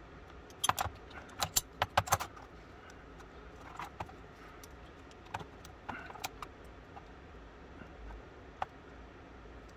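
Small steel parts of an antique boot pistol's lock clicking and clinking against the jaws of locking pliers as the lock is worked back together against its strong mainspring: a quick run of sharp clicks about a second in, then scattered single clicks.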